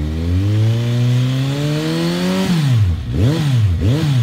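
Kawasaki Z H2's supercharged inline-four engine accelerating, its pitch climbing steadily for about two and a half seconds, then dropping and revving up and down twice in quick throttle blips.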